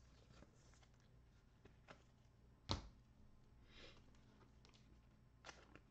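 Faint handling of trading cards and pack wrappers: a few soft clicks and a brief rustle, with one sharp click about halfway through.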